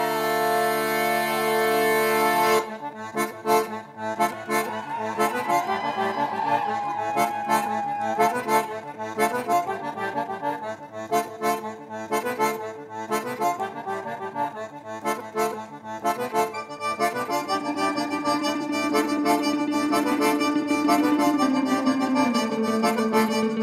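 Live band music with no singing. A held squeezebox chord gives way, about two and a half seconds in, to a steady rhythmic beat with a melody over it. Near the end, long low notes step down in pitch.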